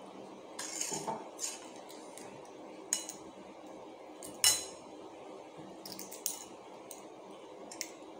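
Balut eggshells being cracked and peeled by fingers: scattered small clicks and crackles, with one sharper, louder click about four and a half seconds in.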